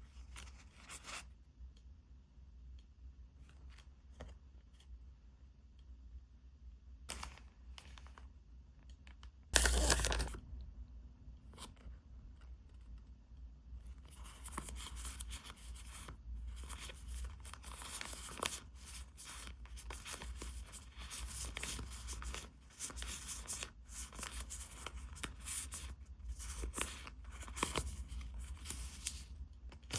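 Packaging being torn open by hand. A few light handling clicks come first, then a loud rip about ten seconds in. From about halfway on there is continuous tearing and crinkling.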